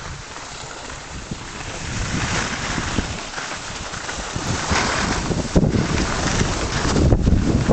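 Wind rushing and buffeting over the microphone of a camera carried by a skier moving downhill, with the hiss of skis sliding over packed snow. It grows louder and gustier in the second half.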